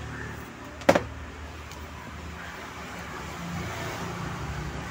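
Steady low background hum and noise, with one sharp click or tap about a second in.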